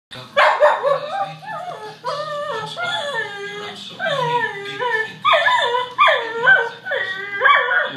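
Shetland sheepdog whining and yipping in a quick string of high calls, about one a second, each falling in pitch: excited at the dogs on a television dog show.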